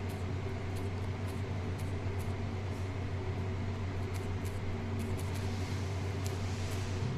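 A steady low mechanical hum, even in level throughout, with faint high clicks scattered through it.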